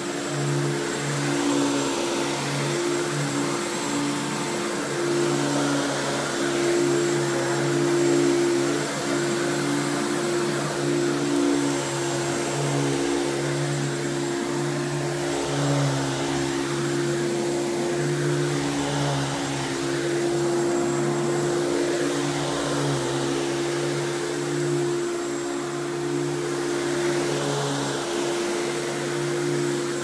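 Simplicity 7350 upright vacuum's 12-amp two-stage motor running on carpet: a steady motor hum over rushing air, swelling gently now and then as the vacuum is pushed along.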